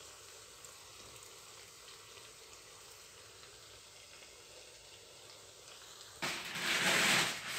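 Hot frying oil sizzling faintly and steadily in a pan, with a much louder burst of hissing about six seconds in that lasts just over a second.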